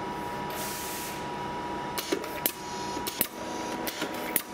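Wrap-around bottle labeling machine running: a steady hum with a constant high tone, a short hiss about half a second in, then a series of sharp mechanical clicks in the second half.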